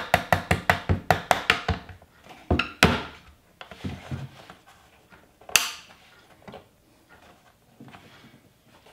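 A mallet tapping a wood chisel into a cabinet-door frame, about five quick strikes a second for the first two seconds. Two louder knocks follow, then a single sharp knock a few seconds later, then faint handling noises.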